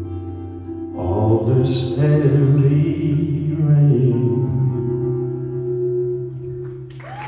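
Live band with acoustic guitar playing the closing chords of a slow ballad, with no singing: held, ringing chords, a louder strummed chord about a second in and another change about four seconds in, then fading. Applause breaks out right at the end.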